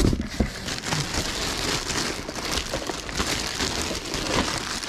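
Thin white plastic trash bag crinkling and rustling steadily as hands pull and tug at it to get it open.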